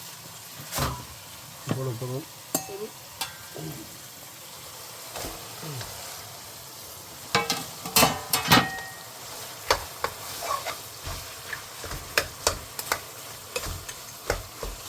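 About 3 kg of chicken sizzling as it fries in a pot and is stirred. A utensil knocks and scrapes against the pot at irregular moments, with a busy cluster of knocks about halfway through.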